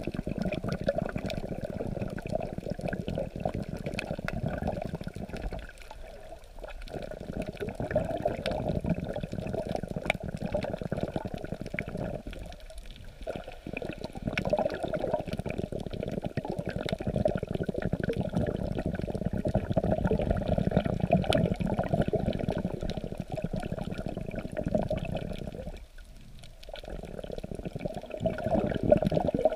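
Muffled rushing and sloshing of seawater heard through an underwater camera held just below the surface as waves move it, sprinkled with faint crackling clicks. The sound dips briefly three times.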